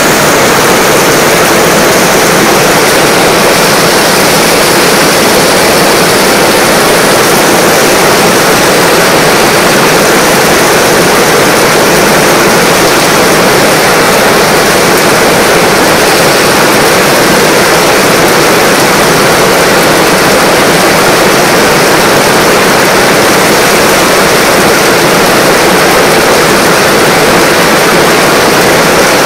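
Heavy rain pouring down and splashing on stone steps and paving, a loud, steady rush of noise that does not let up.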